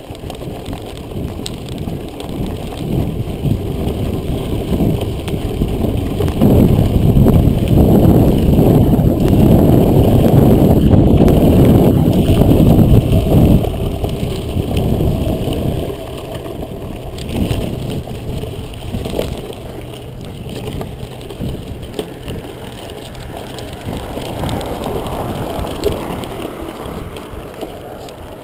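Mountain bike riding a dirt trail: wind rushing over the action camera's microphone along with tyre and frame rattle on the rough ground. It swells louder for several seconds in the middle, then eases off.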